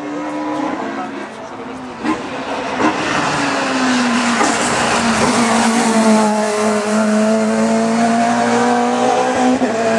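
Competition hillclimb car engine running hard at high revs, its pitch easing down over the first few seconds, then held steady.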